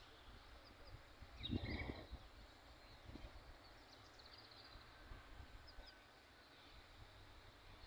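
Faint outdoor ambience: scattered short, high bird chirps over a low steady rumble, with a louder low thump or gust about a second and a half in.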